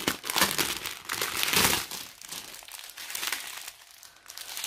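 Crinkling of thin plastic as a strip of small sealed bags of diamond painting drills is handled and unfolded. It is loudest in the first two seconds, then softer rustling.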